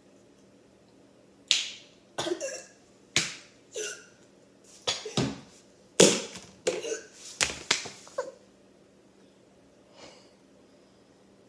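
A boy faking a choking fit: a dozen or so short, harsh coughs and gagging noises in quick fits over about seven seconds, starting a second and a half in.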